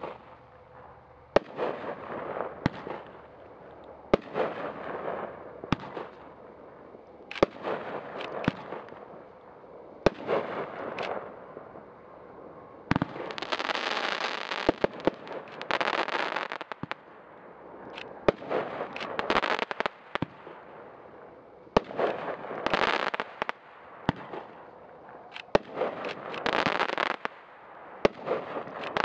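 Mad Ox Velociraptor 22-shot firework cake firing shot after shot: a sharp launch thump every second or two, each followed by the shell's burst and a spell of crackling from its crackle effects.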